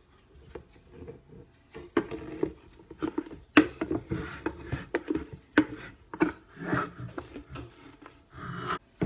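Kitchen utensils scraping and knocking against a wooden mixing bowl in irregular strokes as oat flour is measured into it, busier after about two seconds.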